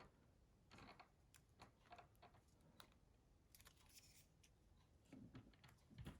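Near silence with faint scattered clicks and light rubbing of small plastic parts of a Nokia 6060 being handled and fitted together, with a couple of soft low knocks near the end.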